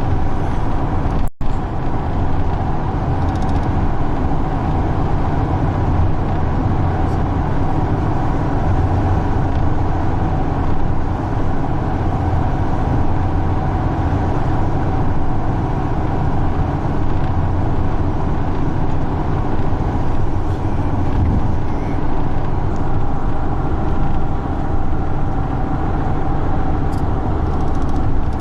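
Steady motor-vehicle rumble with a constant low drone, with a brief dropout in the audio about a second in.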